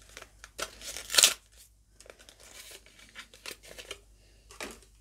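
Cardboard and plastic blister packaging being torn open, with a loud rip about a second in. Light rustling and small ticks follow as the markers are handled out of the packet, and there is another short rustle near the end.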